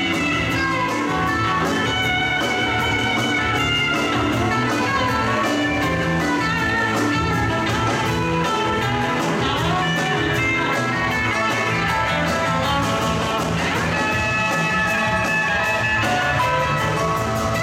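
Live blues-rock band playing an instrumental jam: two electric guitars play lead lines with bent notes over a steady drum-kit beat.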